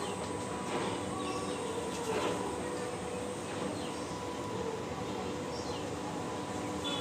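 Steady background room noise with a faint constant hum, and a few faint brief sounds about one and two seconds in.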